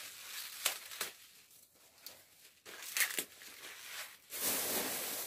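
Fresh leafy pancar greens being handled and torn by hand: papery leaf rustling with a few short sharp snaps, and a longer, denser rustle starting about four seconds in.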